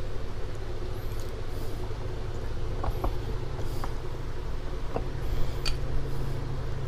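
Steady low rumble of shop background, with a few faint light clicks and taps of metal as a motorcycle front brake caliper and its pads are handled in a vise.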